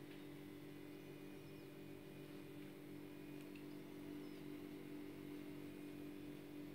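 Faint room tone with a steady low hum and a few faint, short high chirps.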